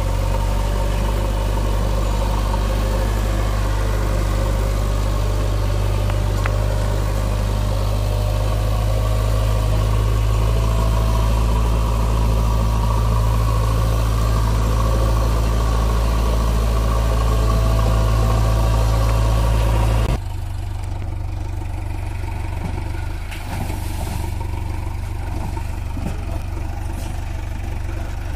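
JCB 3DX backhoe loader's diesel engine running steadily with a loud low hum, then dropping abruptly to a quieter, lighter running sound about two-thirds through.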